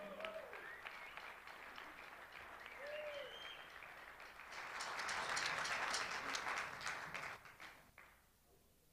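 Audience applauding at the end of a snare drum piece, swelling a few seconds in and dying away about eight seconds in.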